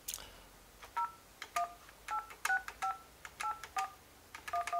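Panasonic KX-NT553 IP desk phone keypad being dialled: about ten digits keyed in quickly, each press giving a key click and a short two-tone DTMF beep from the phone, a few presses a second at an uneven pace.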